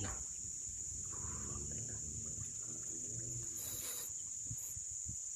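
Steady high-pitched insect drone, with a low rumble underneath and a brief rustle a little before four seconds in.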